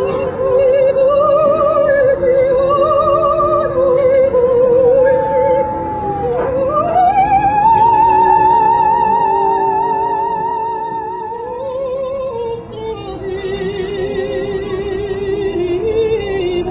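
Operatic singing with a strong vibrato over a sustained accompaniment. About six seconds in the voice dips and swoops up into a long held high note, and it returns to a lower wavering line near the end.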